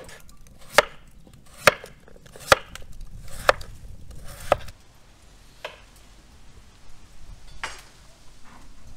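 Chef's knife chopping peeled raw potatoes into slices on a wooden cutting board: five sharp knocks of the blade on the board, about one a second, then two fainter ones later.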